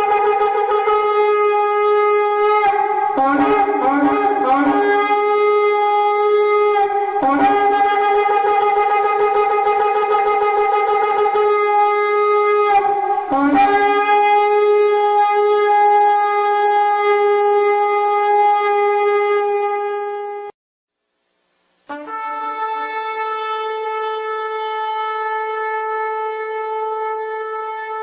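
Shofar sounding long, held blasts, broken by a run of quick short notes about three to five seconds in. The blast cuts off abruptly about twenty seconds in, and after a second and a half of silence a new long blast begins at a slightly higher pitch.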